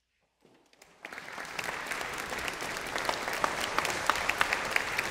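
Silence, then an audience breaks into applause about a second in, swelling quickly to steady clapping at the end of the piece.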